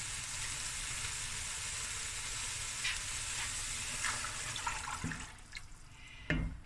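Beef broth poured from a jug into a hot stainless pot of browned beef cubes: a steady splashing pour that tapers off about five seconds in. A dull knock near the end.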